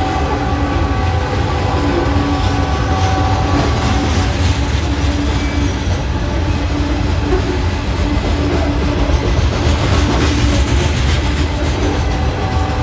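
Loaded-or-empty freight train of steel coal hopper cars rolling past at steady speed, wheels clacking over the rail joints under a dense rumble. A few steady ringing tones come and go within it.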